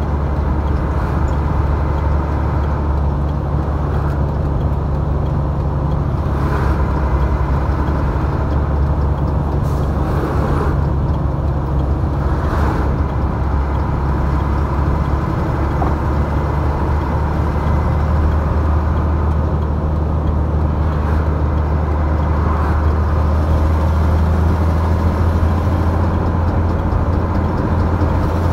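Engine and road noise of a moving vehicle, a steady low drone heard from the vehicle the recording is made in, with a few faint brief sounds in the middle.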